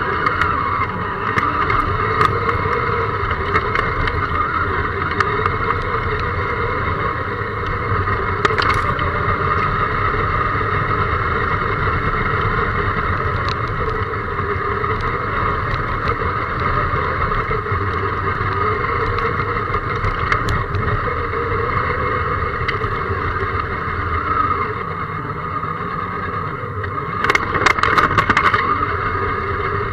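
Electric motor and gear whine of a scale RC crawler truck, heard up close from a camera mounted on it as it drives over grass and dirt; the pitch wavers with the throttle. Scattered ticks from the chassis and tyres on the ground, and a louder clatter near the end.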